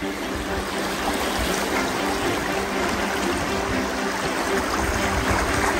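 River water flowing steadily, a constant rushing noise, with faint sustained music tones underneath.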